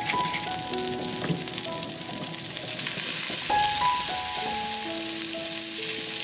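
Butter sizzling as it melts and foams in a nonstick pan, a steady crackling hiss, with gentle background music playing melodic notes over it.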